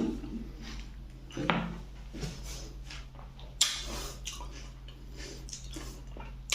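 Scattered clinks and taps of dishes while pani puri are handled and eaten, with sharper knocks about a second and a half in and again about three and a half seconds in.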